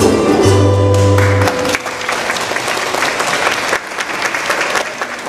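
A Hawaiian band of ukuleles and guitars ends a song on a held final chord, and about a second and a half in the audience breaks into applause, which carries on.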